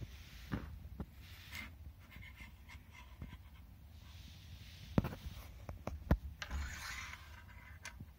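Handling noise from a braided charging cable and its plastic USB plug on a desk: small scattered clicks and taps, with a sharper knock about five seconds in and another about a second later, then a soft rustle near the end.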